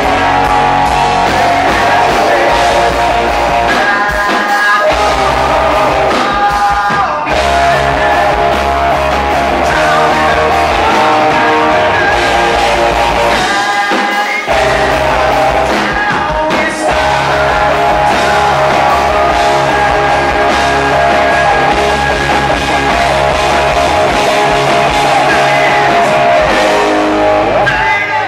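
Live rock band playing, with a male lead vocal singing over electric guitar, bass and drums. It is heard from right in front of the stage, with a guitar amp blasting into the camera mic, so the sound is loud and distorted. The bass and drums drop out briefly twice, about four and fourteen seconds in.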